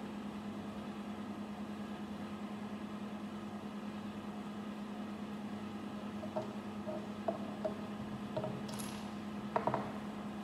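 Small plastic building bricks clicking and tapping as they are pressed together and set down on a wooden table: a handful of light clicks in the second half, the loudest cluster near the end, over a steady low hum.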